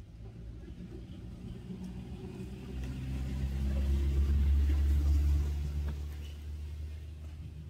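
A low engine rumble that swells to its loudest about four to five seconds in and then fades, like a motor vehicle passing by.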